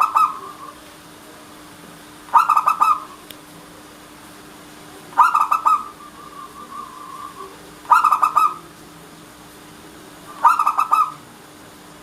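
Zebra dove (perkutut) cooing: short phrases of rapid cooing notes, the end of one phrase and then four more about every two and a half seconds, the third trailing off in a softer drawn-out coo.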